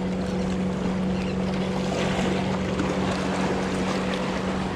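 Wind and sea noise at a rock jetty, with a steady low mechanical hum running under it.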